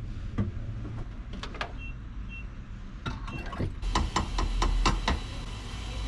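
Gas station fuel pump beeping briefly three times, then a quick run of clicks and clunks as the fuel nozzle is handled.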